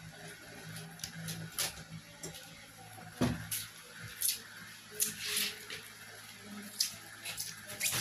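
Eating by hand: wet squishing and irregular short clicks from fingers pressing rice and fish paksiw on a plate, with chewing and lip smacks, picked up close by a clip-on microphone.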